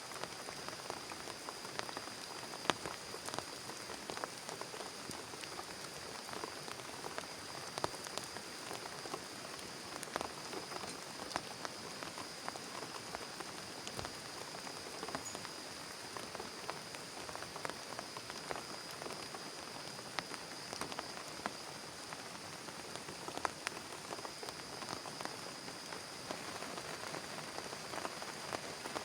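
Steady heavy rain falling on a plastic tarp, with many sharp single drop hits standing out. A thin, steady high tone runs underneath.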